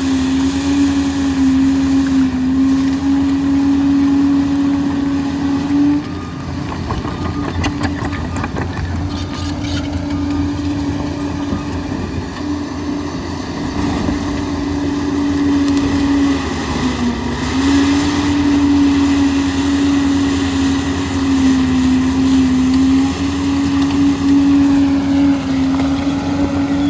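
Liebherr 746 crawler dozer working, its engine and drive giving a loud, steady drone over a low rumble. The drone weakens for several seconds in the middle, then comes back strong after a short dip in pitch.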